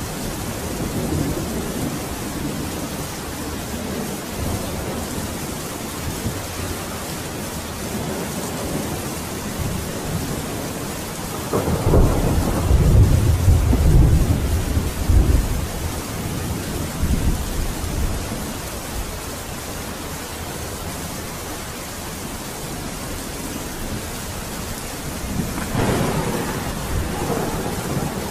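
Steady rain with rolling thunder: a long low rumble about halfway through and another near the end.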